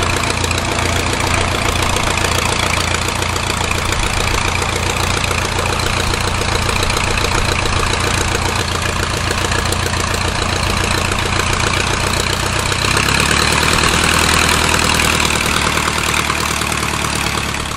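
De Havilland Tiger Moth's 130 hp Gipsy Major four-cylinder engine idling steadily, the wooden propeller turning slowly. About thirteen seconds in the engine note changes and gets a little louder.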